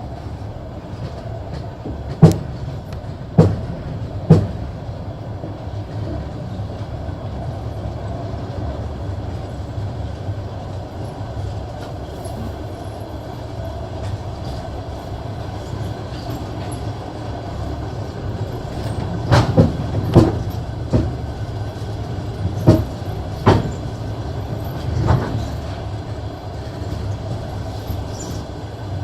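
Passenger train running along the track: a steady low rumble of wheels on rail, broken by sharp clacks of the wheels over rail joints. There are three clacks a few seconds in, then a quicker run of them over about six seconds past the middle.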